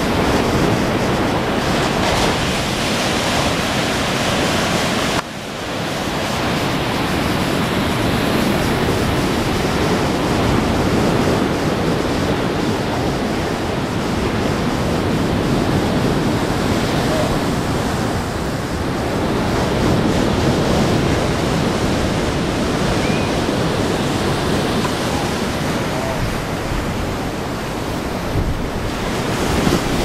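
Ocean surf breaking and washing ashore, a steady rush of waves with wind on the microphone; the sound drops out briefly about five seconds in.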